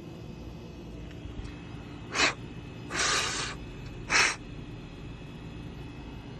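Pressurized spray hissing in three short bursts about a second apart, the middle one the longest, as carburetor parts are cleaned.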